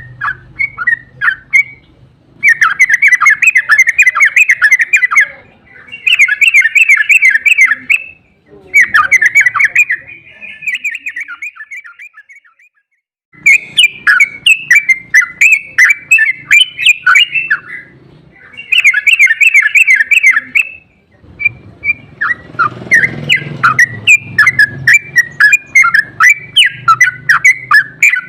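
Yellow-vented bulbul (trucukan) song in rapid rolling runs ('ropel'): dense chattering phrases of a few seconds each, separated by short pauses, with a brief silence near the middle.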